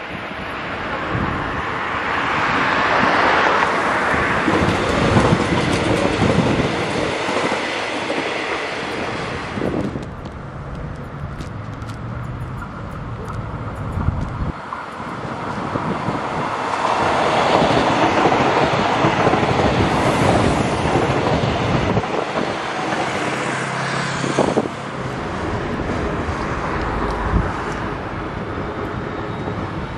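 Alstom X'Trapolis electric multiple-unit passenger trains running on the line: steady wheel-on-rail running noise that swells twice as trains approach and pass.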